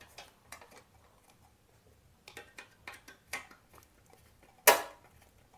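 Small metallic clicks and taps as a ceiling-fan blade's steel bracket is handled and positioned against the fan's motor housing, with one much louder knock a little under five seconds in.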